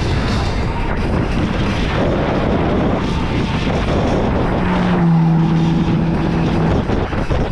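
Heavy wind buffeting the microphone while riding an electric scooter. About five seconds in, a steady low hum rises in briefly and holds for about two seconds.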